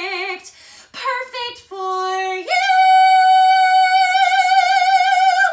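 A woman singing a musical-theatre song unaccompanied: a few short phrases, then a long high final note held with vibrato for about three seconds, ending abruptly.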